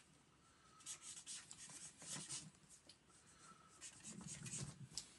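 Faint scratching of a felt-tip marker rubbed back and forth across sketchbook paper in short strokes, blocking in colour.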